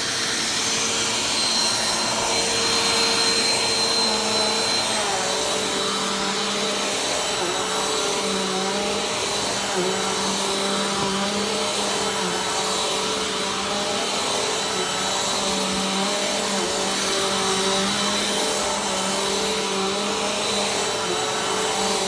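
Upright bagless vacuum cleaner running steadily while it is pushed over carpet: a constant motor hum with a thin high whine on top, its pitch wavering slightly in the second half.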